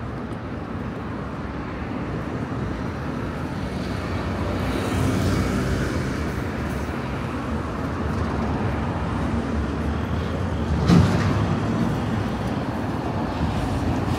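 City street traffic noise: motor vehicles running and passing steadily, swelling for a few seconds partway through. A short sharp knock comes about three-quarters of the way in and is the loudest sound.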